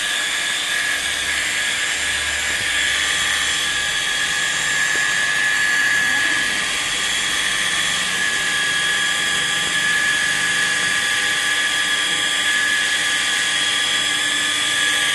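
Electric rotary polisher with a foam pad running at a steady speed, its motor giving a steady whine as the pad buffs scratches out of the paint on a motorcycle fuel tank.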